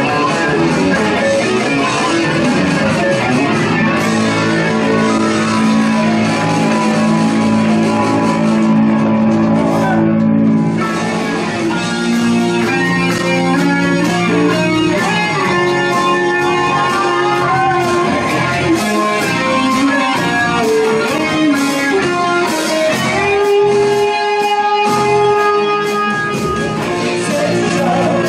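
Live rock band playing an instrumental passage with no vocals: electric guitar to the fore over bass guitar and drums, with a long held guitar note a little before the end.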